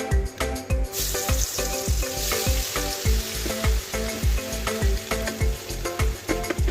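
Food sizzling and frying in hot oil in a pan, the sizzle starting suddenly about a second in, over background music with a steady beat.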